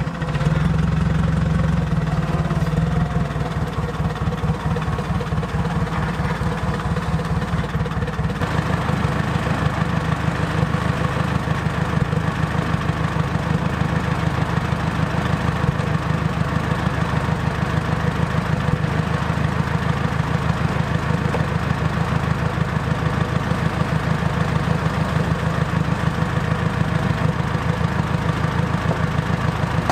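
A motor running steadily at idle with a fast, even pulse; its deepest part drops away about eight seconds in.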